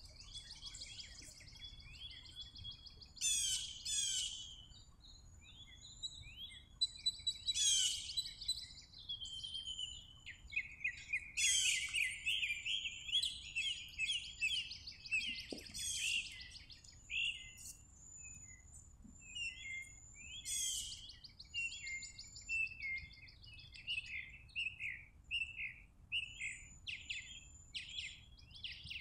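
Several wild songbirds chirping and singing over one another. A quick trilled phrase comes back every few seconds over steadier chirps and a thin high whistle.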